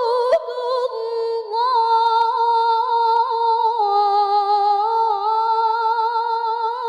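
A woman reciting the Quran in melodic competition style, drawing out the word 'ḥudūd' ('limits') into one long ornamented note without accompaniment. The held pitch dips lower partway through, rises again, and takes on a fast wavering vibrato near the end.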